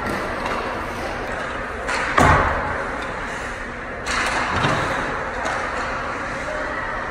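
Hockey pucks hitting the boards and glass around the net during shooting practice: a loud thud about two seconds in, then two more hits at about four and four-and-a-half seconds, over steady arena noise.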